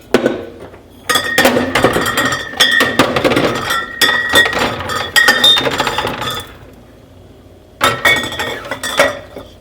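Glass bottles and jars clinking and knocking against each other and against plastic organiser bins as they are shifted and fitted into a container, in two bouts of rattling with a short pause between them.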